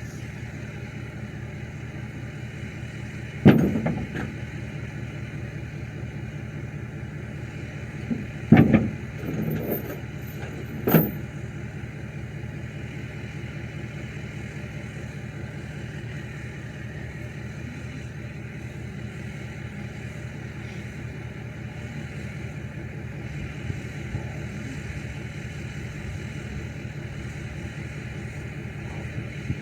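Pickup truck engine running steadily, with three sharp, loud knocks: one about three and a half seconds in, one near nine seconds with a couple of smaller ones after it, and one near eleven seconds.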